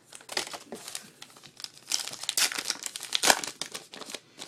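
Plastic wrapper of a trading-card pack crinkling and tearing as it is opened, a rapid run of crackles that gets thickest and loudest in the middle.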